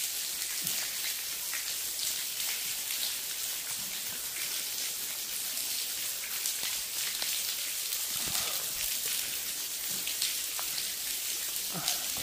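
Water raining down a railway tunnel's ventilation shaft: a steady hiss of falling drops with scattered sharper splashes.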